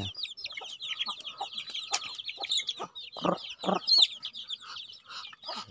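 A flock of young chickens peeping rapidly and continuously in short, high, falling chirps, with a few lower clucks about three seconds in.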